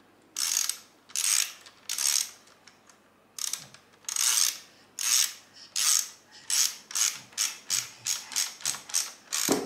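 Hand ratchet (socket wrench) clicking in short back-and-forth strokes as a bolt is tightened on a metal furniture leg. The strokes come about one every second at first, pause briefly, then speed up to about two a second near the end.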